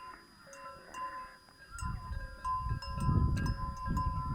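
Metal bells or chimes ringing, several clear tones struck again and again. A low rumble joins about two seconds in and is the loudest part.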